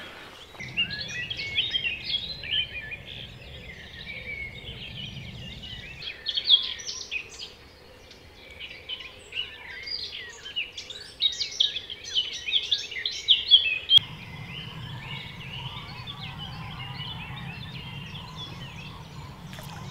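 Dawn chorus of several songbirds: a dense, overlapping run of short chirps and trills. Underneath is a low steady hum that cuts out about six seconds in and comes back about fourteen seconds in.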